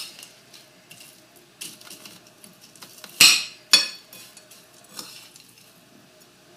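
Metal utensil clinking and scraping against a pie dish as crumb topping is spread over a pie, in scattered light taps with two sharper clinks about three seconds in.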